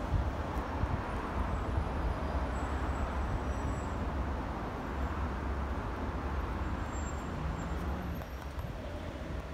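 Steady outdoor background noise: a low, fluttering rumble with a softer hiss above it and no distinct events.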